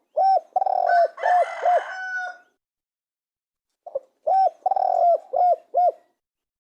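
Spotted dove cooing: two phrases of several short coos, each lasting about two seconds, with a pause of over a second between them.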